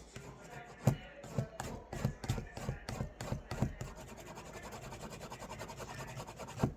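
Cloth rubbing hard along the edge of a leather sheath, burnishing it with burnishing gum to press the fibres down. Uneven strokes at first, then quicker, even back-and-forth strokes in the second half.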